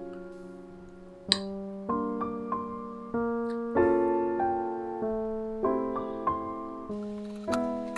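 Background piano music: soft chords, each struck and left to fade, changing every second or so. A short sharp click comes about a second in.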